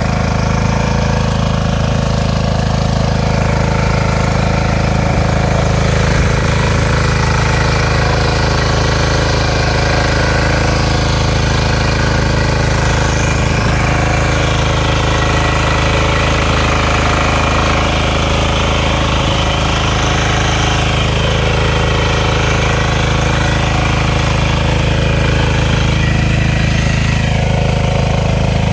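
Walk-behind mini power tiller's small engine running steadily under load as its rotary tines churn the soil. The engine note stays even throughout.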